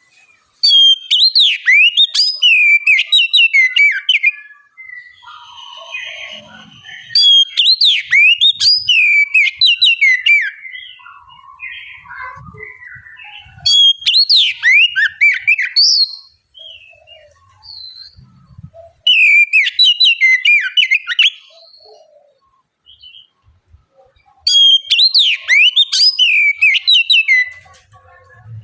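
Oriental magpie-robin singing in loud bursts of varied whistles and fast sweeping notes: five phrases of about three seconds each, with softer scattered calls between them.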